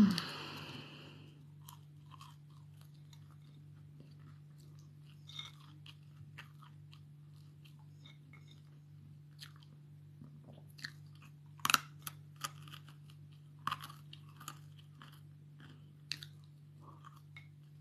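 A person eating close to the microphone: scattered crunches and chewing noises, a few sharper bites among them, over a steady low electrical hum. It opens on the fading end of a loud, low throaty sound.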